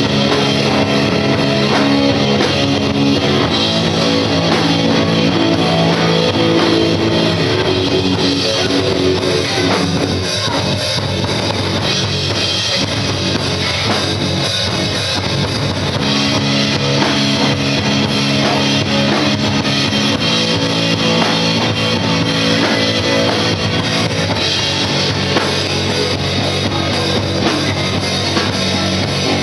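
Rock band playing live: guitar and drum kit. The held chords thin out for a stretch in the middle and come back in full about halfway through.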